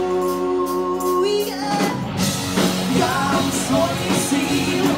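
Live rock band playing: a woman sings lead over electric guitars, bass guitar and drums. It opens on a long held note of about a second and a half before the singing moves on.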